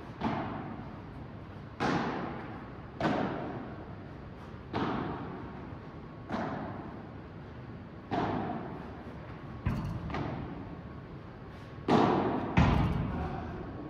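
Padel rally: the ball is struck back and forth with padel rackets, with a sharp hit about every one and a half seconds. Each hit echoes in the large indoor hall, and the two heaviest hits come close together near the end.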